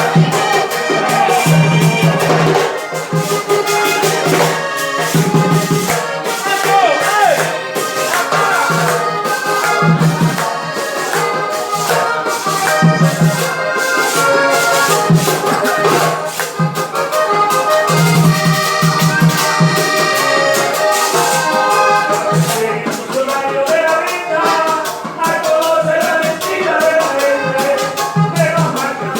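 Upbeat Latin American music with a steady beat: rattling shaker percussion over pitched melody lines and a pulsing bass.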